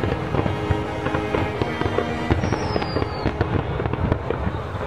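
Fireworks going off in rapid succession, a dense run of bangs and crackles, with music of held notes underneath and a brief high whistle falling in pitch about two and a half seconds in.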